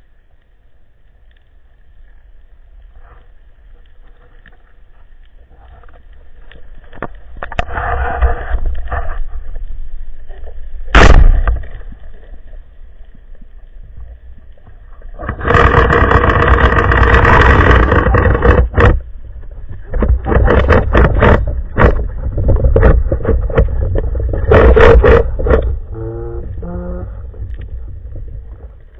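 Band-powered speargun fired underwater: a single sharp crack about eleven seconds in. Afterwards come long loud stretches of rushing, rattling water noise while the shaft's line is out.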